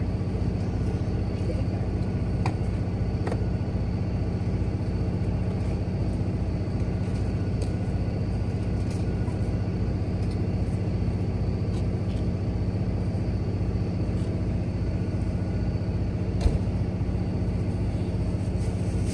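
Heavy tow truck's engine idling steadily, with an even low pulse of about four beats a second. A single sharp knock sounds about 16 seconds in.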